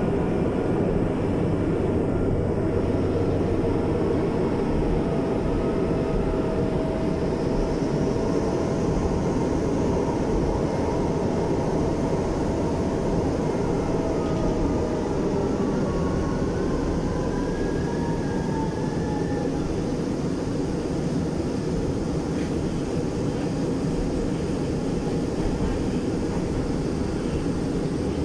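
MRT-3 light rail train running at speed, heard from inside the car as a steady rumble. Faint whining tones rise and fall in pitch around the middle.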